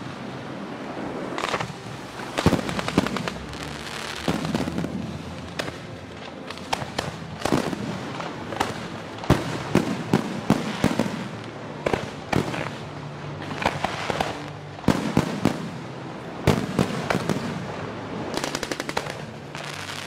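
Fireworks display: aerial shells going off in a string of bangs and crackling bursts, with a fast rattling run of reports near the end.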